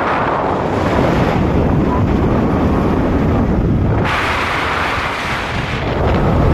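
Wind rushing over the microphone and road noise from a moving vehicle, a steady loud rumble and rush. About four seconds in, a brighter hiss of rushing air comes up for under two seconds.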